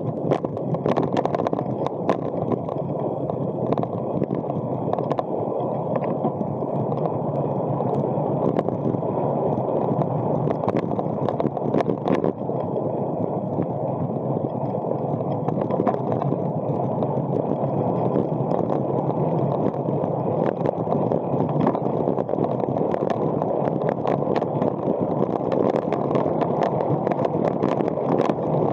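Road bike riding along an asphalt lane, heard on an onboard action-camera microphone: a steady rushing of wind and tyre-on-road noise, with scattered small clicks and knocks from the bike and the road surface.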